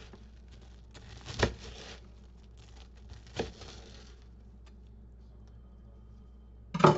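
Bread knife cutting through cubes of toasted whole wheat bread: crisp crunching in two short spells, each with a sharp knock of the blade on the cutting board, about one and a half and three and a half seconds in.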